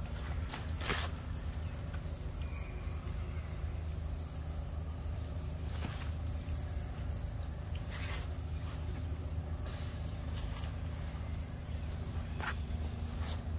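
Steady forest ambience of droning insects over a low rumble, broken by a few short sharp clicks about a second in, around eight seconds in and near the end.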